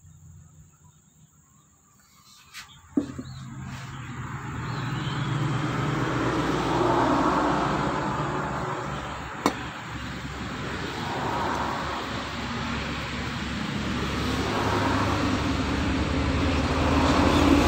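A motor vehicle engine running steadily. It starts about three seconds in, after a couple of clicks, swells and eases every few seconds and slowly gets louder. There is one sharp metallic clink near the middle.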